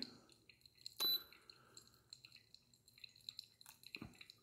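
Faint pattering and dripping of hot water poured from a stainless gooseneck kettle onto coffee grounds in a Hario V60 paper filter cone and dripping into the glass decanter below. A short ringing clink about a second in is the loudest sound, and there is a soft thump near the end.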